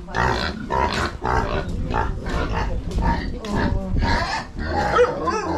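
Domestic pigs grunting over and over, in short grunts several times a second, with a brief higher call near the end.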